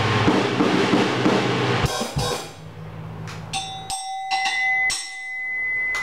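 PDP by DW drum kit being played: a dense run of drums and cymbals for about the first two seconds, then sparser single strikes that ring on.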